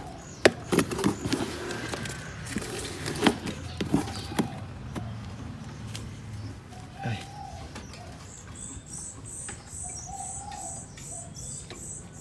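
Freshly trapped white-rumped shamas being handled and moved into cages: a run of sharp knocks, rattles and wing flutters through the first five seconds, then quieter, with a few short chirps.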